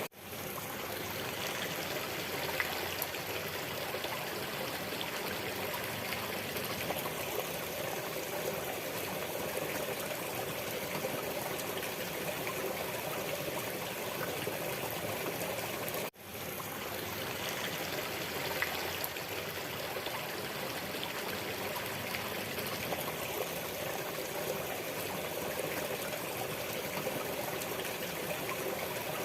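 Waterfall water rushing and splashing in a steady, even stream. It cuts out for an instant about halfway through and fades straight back in, like a loop restarting.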